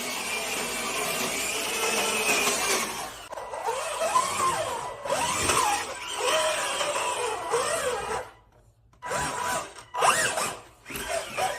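Electric drive motors of a 1/12-scale remote-control toy tank whining as it drives. The whine is steady at first, then rises and falls in pitch again and again as the tank speeds up and slows, and it stops briefly twice near the end.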